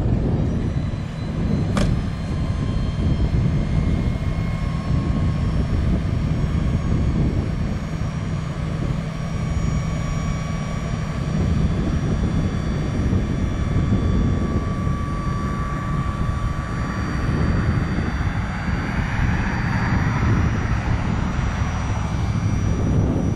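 Electric-over-hydraulic dump bed hoist (Omaha Standard 519) running as the bed is raised: a steady low drone with a thin whine that climbs slightly in pitch, and a rushing hiss swelling near the end.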